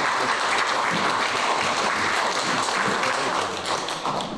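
Crowd applauding, many hands clapping at a steady level and thinning out near the end.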